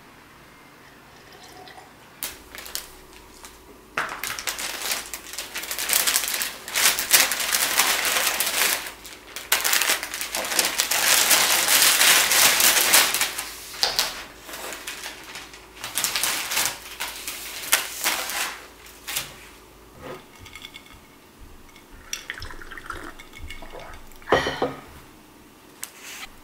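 Paper bag and plastic takeout container rustling and crinkling as delivered food is unpacked, in long stretches of loud, dense rustle over a steady low hum. After that the rustle gives way to lighter scattered clicks and knocks of dishes and food being set out.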